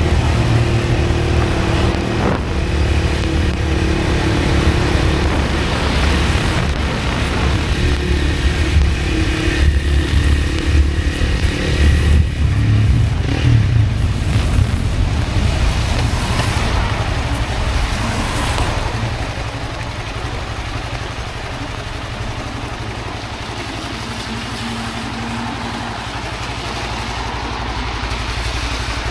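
A motor vehicle engine running steadily under a constant noise haze. It is louder and more uneven for most of the stretch, then drops to a lower, steadier level near the end.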